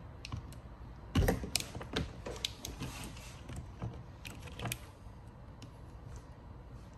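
Plastic grille and wiring harness being worked free by hand: a run of irregular clicks, knocks and creaks, the loudest about a second in.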